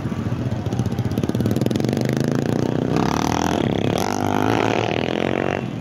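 Motorcycle and car engines running close by. About three seconds in, a wavering pitched sound joins them for a couple of seconds, then cuts off suddenly.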